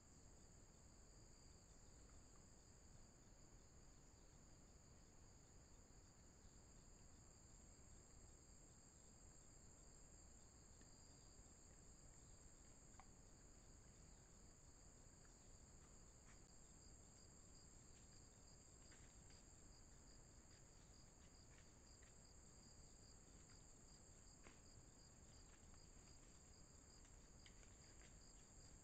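Faint, steady high-pitched chorus of insects, with a few faint scattered clicks over the second half.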